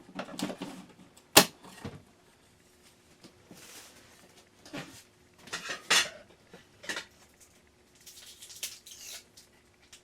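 Irregular clicks, taps and light clatter of a light-switch cover plate and its screws being handled, with one sharp click about a second and a half in.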